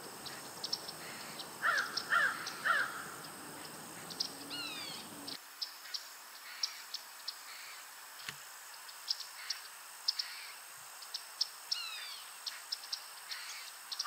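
Wild birds calling: three loud calls in quick succession about two seconds in, over many short high chirps and a couple of falling whistled calls. A low background rumble stops abruptly about five seconds in.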